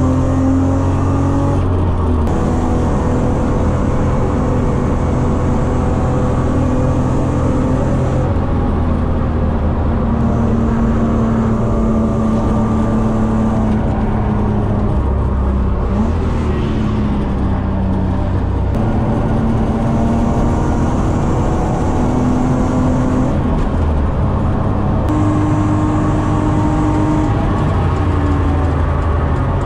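BMW E36 323i's 2.5-litre straight-six engine at full throttle on track, heard from inside the cabin; its note rises and falls with a few short breaks, over steady tyre and wind noise.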